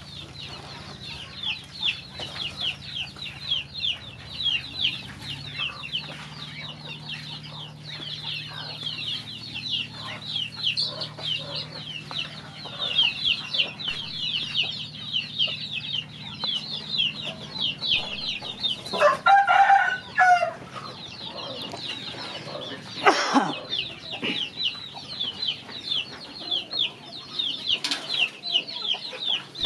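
Young ducklings and chicks peeping continuously, a dense run of quick, high downward chirps, several a second. A low steady hum sits under the first half, and a couple of louder chicken calls break in about two-thirds of the way through.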